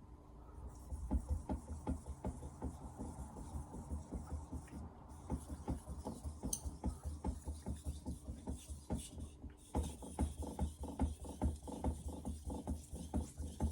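Steel knife blade of a Victorinox 210 mm kitchen knife stroked back and forth across a Chosera 3000 whetstone, a quick, steady scraping rhythm of about three strokes a second, with a brief pause about two-thirds through.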